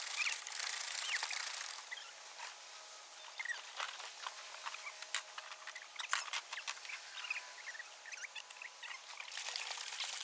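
Water splashing and trickling as a Sun Dolphin pedal boat's paddle wheel churns the pond, heavier at the start and again near the end. Short high chirps and scattered clicks run over it.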